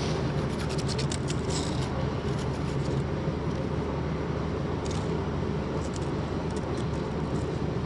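An engine running steadily at idle, a low, even hum with a few faint clicks over it.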